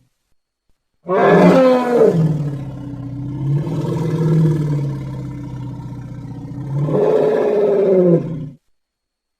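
Elephant roaring: one long, low call that starts about a second in and lasts about seven seconds. Its pitch falls at the start, holds, rises again near the end, and then cuts off suddenly.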